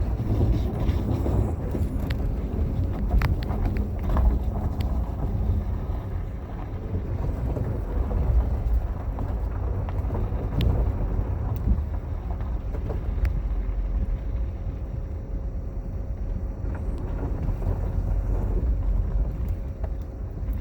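A vehicle driving across lake ice, heard from inside the cab with the window down: a steady low rumble of engine and tyres with wind noise, broken by scattered sharp clicks and crunches.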